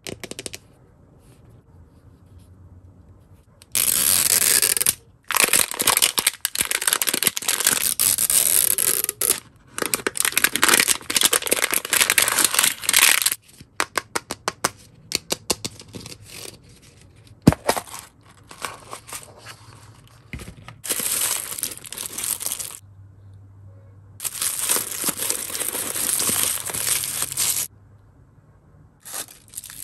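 Printed plastic wrapper being torn and peeled off an L.O.L. Surprise ball, loud crackling in long stretches. A quick run of small clicks follows, then more crinkling of wrappers.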